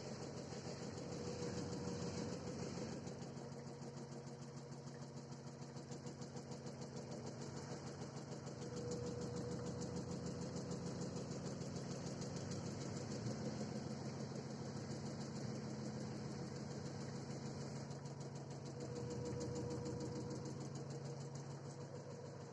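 LG direct-drive washing machine on its spin cycle: a steady hum with a rapid, regular knocking, swelling and easing in loudness every several seconds. The owner takes the knock for a hose or wire striking the inside of the cabinet, with the drain hose vibrating noticeably.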